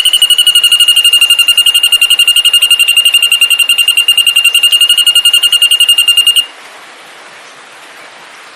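A songbird's long, rapid trill held on one high pitch, about a dozen notes a second, stopping abruptly about six seconds in and leaving a faint hiss.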